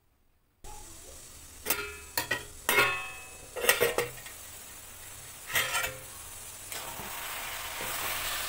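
A steel lid clinking and scraping against a steel kadhai several times as it is lifted off, over the hiss of grated carrots frying in ghee. Near the end a spatula stirs the sizzling carrots and the sizzle grows louder.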